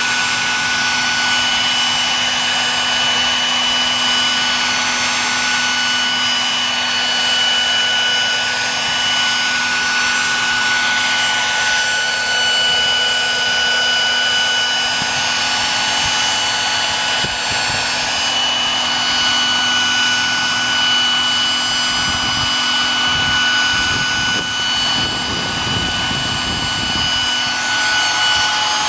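Radio-controlled MD900 scale model helicopter running and hovering: a steady high-pitched drive whine over the rush of the rotor blades, with some low rumbling in the last few seconds.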